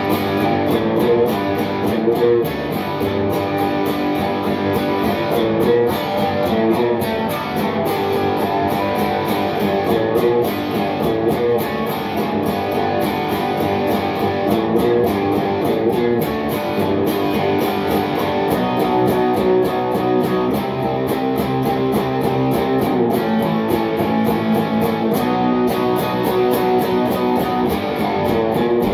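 Telecaster-style electric guitar played without pause, picked chords and riffs in a steady rhythm.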